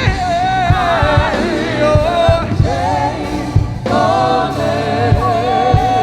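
Live gospel worship music: voices singing and holding long notes with vibrato over a band with a steady drum beat.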